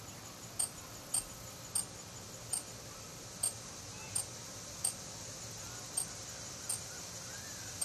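Insects calling as the sky darkens at the eclipse: a steady high insect hiss, with a sharp, very high single chirp about once a second. A faint bird note comes in near the end.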